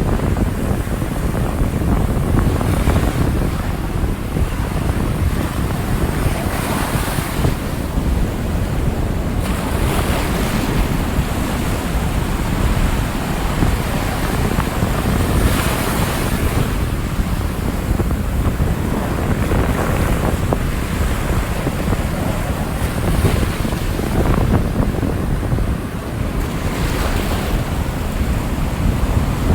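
Rough ocean surf: heavy waves breaking over a continuous rush of water, swelling every few seconds, with wind buffeting the microphone.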